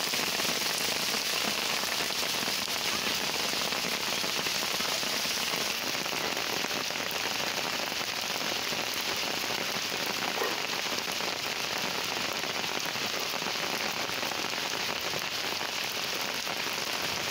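Steady rain falling on a paved floor and potted plants, an even hiss.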